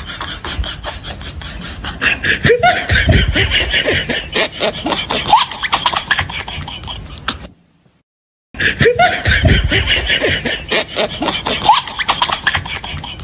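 Laughter over a fast rhythmic pulse. It runs for about seven seconds, cuts off into a second of silence, then plays again.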